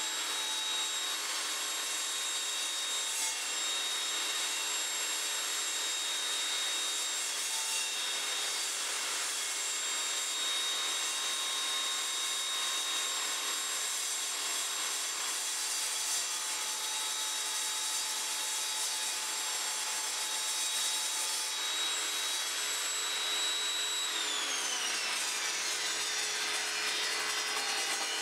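Evolution Rage 5-S table saw with its 10-inch blade running and cutting a sheet fed through on the sliding carriage, a steady cutting noise over a high motor whine. About four seconds before the end the whine falls in pitch as the blade winds down.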